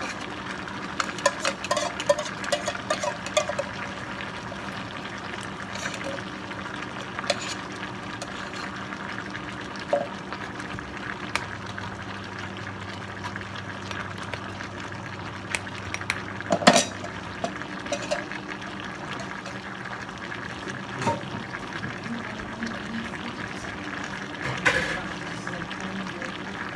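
A spoon stirring crabs and vegetables in coconut milk in a pan, with scattered clinks and scrapes against the pan over a steady cooking hiss. The sharpest clack comes about two-thirds of the way through. A faint steady hum runs underneath.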